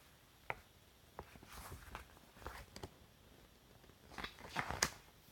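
Faint handling sounds: a few soft clicks and light rustles, then a louder rustle with a sharp click near the end.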